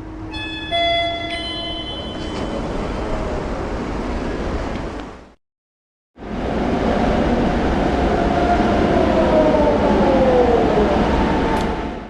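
Subway train rumble. Near the start a chord of steady tones sounds for about two seconds. After a brief silent gap, a second train rumbles with metallic wheel screech that glides down in pitch.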